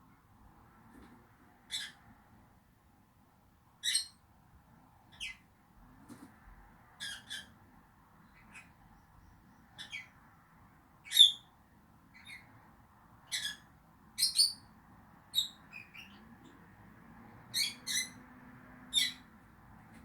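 Rosy-faced lovebirds chirping: about twenty short, sharp, high-pitched chirps, irregularly spaced a second or so apart, with the loudest about halfway through.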